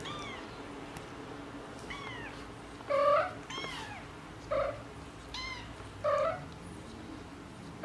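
Cats meowing: short, higher-pitched falling mews alternate with louder, lower, rising meows, about eight calls in all, the loudest about three seconds in.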